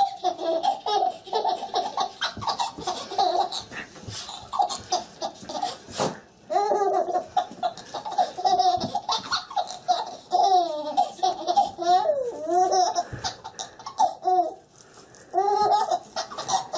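Baby laughing in repeated high-pitched bursts, with a brief lull a little past two-thirds of the way through.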